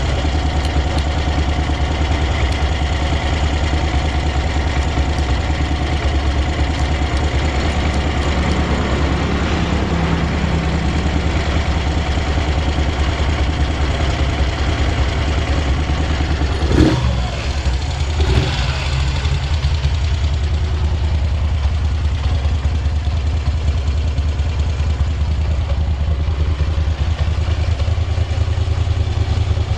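Moto Guzzi Breva 1100's air-cooled V-twin idling steadily and evenly, with no odd noises. Twice, a little past halfway, a short sharp louder sound cuts in over it.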